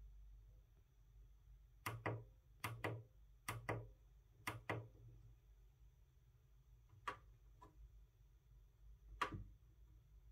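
Keys of a 4x4 membrane keypad being pressed, each press a short double click; four presses about a second apart, then two more spaced out.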